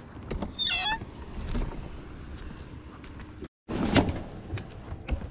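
Knocks and bumps on a bass boat's deck over a steady wind-and-water hiss, with a brief high chirp falling in pitch about half a second in. The sound cuts out for a moment past the middle, and the loudest knock comes right after.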